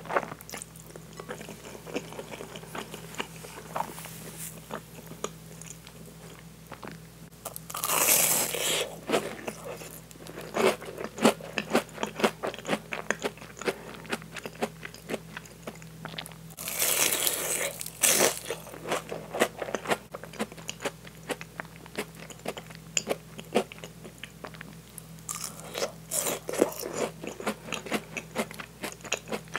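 Close-miked eating sounds: steady chewing with many small wet mouth clicks, and three louder spells of biting and chewing. The later two fall as she bites into a breaded crab cream croquette.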